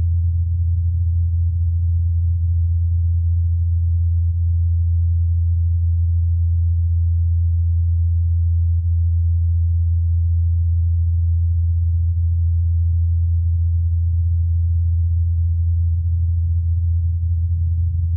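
Ingenuity Mars helicopter's rotor blades humming at 84 Hz, recorded on Mars by the Perseverance rover's SuperCam microphone. It is a steady low hum, filtered to keep only 80–90 Hz and amplified, with some clipping.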